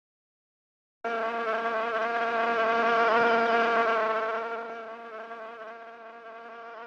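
A flying insect's wings buzzing in one steady, even-pitched drone that starts about a second in, swells, then slowly fades.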